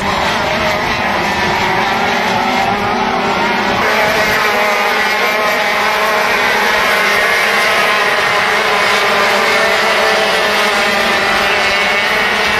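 Several racing kart engines running hard at once, a high, buzzing mix of engine notes whose pitches shift up and down as the karts go round the track.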